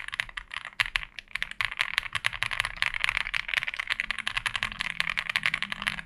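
Fast two-handed typing on an Owlab Spring mechanical keyboard with lubed MMD Cream POM linear switches: a dense, quick run of keystrokes with a deep, creamy sound, stopping near the end.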